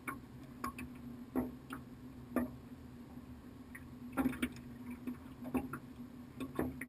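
Scattered light knocks and clicks against a small aluminum boat as a leopard shark is held and handled aboard, over a steady low hum. The knocks come at irregular times, the loudest about 1.4, 2.4 and 4.2 seconds in.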